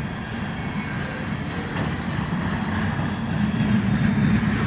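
Freight train of container flatcars rolling past: a steady rumble of steel wheels on the rails, growing louder near the end.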